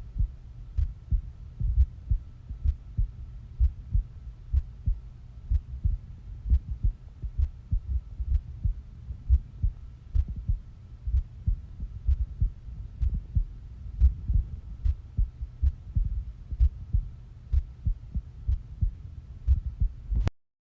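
A person's heartbeat: low, evenly spaced thumps in a steady rhythm of about one beat a second, with a faint steady hum behind them. A click near the end, then the recording cuts off.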